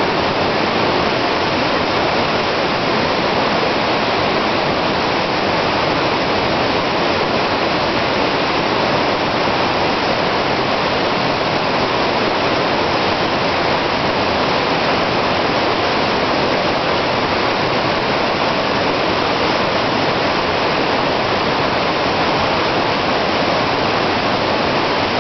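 Fast whitewater mountain river rushing over rocks: a loud, steady, unbroken rush of water.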